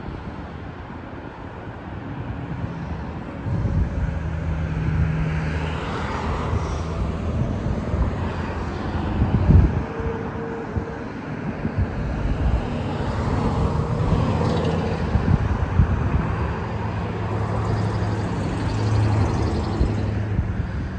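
Passing road traffic: cars driving through the intersection one after another, their engine and tyre noise swelling and fading, loudest about halfway through.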